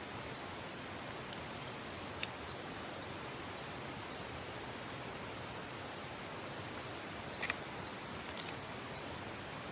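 A steady rushing hiss with a few sharp crackles from wood burning in a campfire: one about two seconds in and a louder cluster about seven and a half seconds in.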